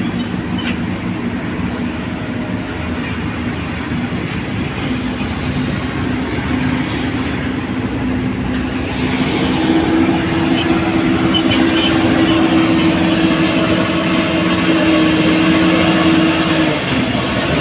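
Heavy diesel earthmoving machine running steadily as it works, getting louder with a higher steady whine joining in about halfway through, which eases off near the end.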